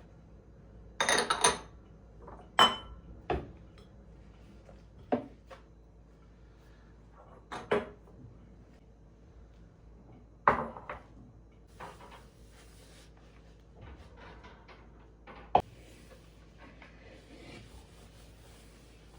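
Dishes and cutlery clinking and knocking as they are handled and set down, in a series of separate short knocks, the loudest about a second in and near three seconds. A brief faint rustle comes about twelve seconds in.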